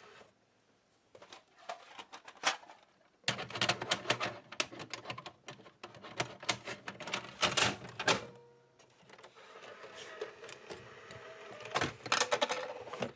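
Rapid, irregular clicking and clattering of plastic video gear (a portable VHS recorder and camera) being handled and switched on, in clusters of sharp clicks. From about eight seconds in a fainter steady hum with a low tone runs beneath, with another burst of clicks near the end.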